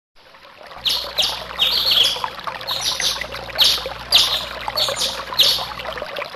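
A nature-sound ringtone of recorded birdsong: sharp, falling chirps about twice a second over a steady watery hiss. It starts and cuts off abruptly.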